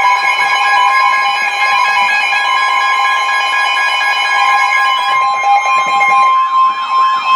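Weather radio sounding a NOAA Weather Radio warning alert: a loud, steady high tone with a second steady tone just beneath it. About five seconds in, a tone sweeping up and down sets in over it. The alarm signals that a warning message is about to be broadcast, here a severe thunderstorm warning.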